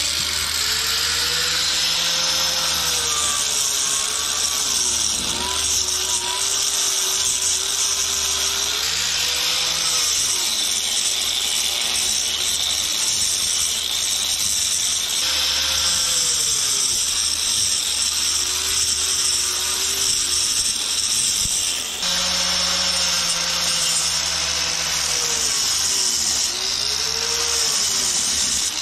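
Angle grinder fitted with a double-blade tuckpointing wheel, cutting out the mortar joints of a concrete-block foundation wall. It makes a continuous, loud, high-pitched grinding noise, and the motor's pitch sags and recovers again and again as the wheel bites into the joint.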